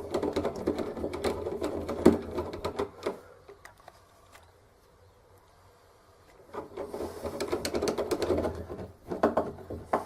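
Long machine screws being driven through a door handle assembly with a screwdriver: rapid clicking and rattling of the screw and thin metal handle hardware. It comes in two spells with a quiet pause in the middle.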